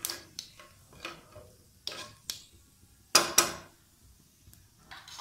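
Wooden spatula stirring and scraping whole spices in hot oil in a nonstick frying pan, in short irregular strokes, with two louder knocks about three seconds in.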